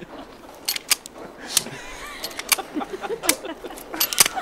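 Pistol misfiring: several sharp metallic clicks as the trigger is pulled and the gun is worked, with no shot going off.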